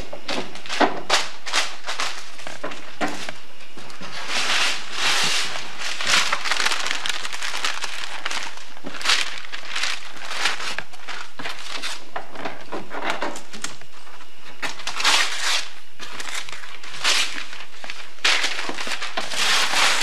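Gift wrapping paper rustling, crinkling and tearing as a large present is unwrapped by hand, in irregular spells with louder stretches.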